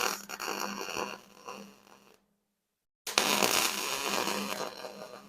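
MIG welding on a steel ATV frame: an arc burning with a steady hum under it, fading out about two seconds in. After a second of dead silence it starts again loudly at about three seconds and dies away.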